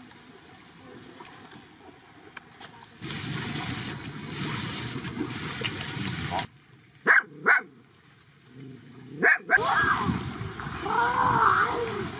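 Animal calls: two short, sharp cries in quick succession about seven seconds in and another about two seconds later, then whining calls that rise and fall in pitch.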